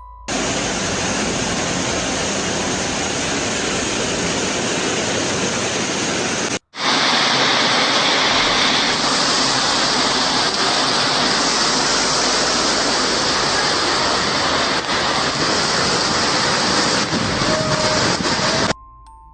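Loud, steady rushing of water in a storm, with a hard cut about six and a half seconds in to another stretch of the same rushing noise, slightly louder, which stops abruptly near the end.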